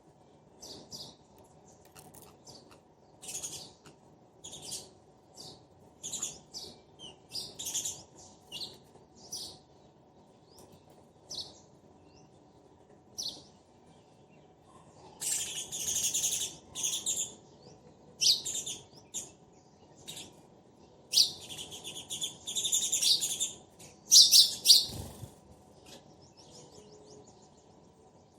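Sparrows chirping: short, quick chirps, scattered at first, then coming in denser, louder runs about halfway through and again near the end.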